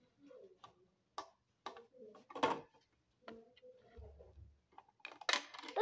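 Small plastic toy dishes and a doll clicking and knocking against a plastic toy kitchen as they are handled. A few light, separate clicks, with the loudest knock about halfway through.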